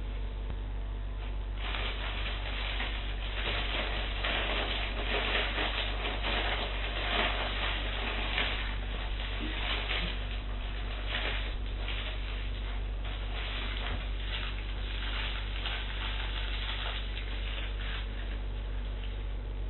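Paper food wrapper and bag rustling and crinkling as they are handled, in a dense run of short crackles from about two seconds in until near the end, over a steady low electrical hum.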